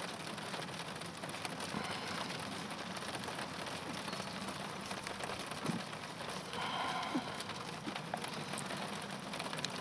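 Steady rain falling, an even hiss of drops throughout.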